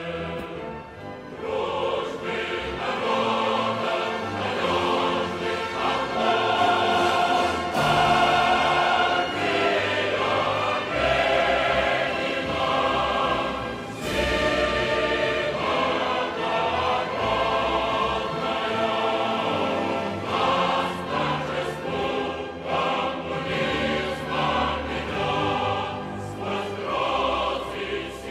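Background music: a choir singing held notes over a musical accompaniment.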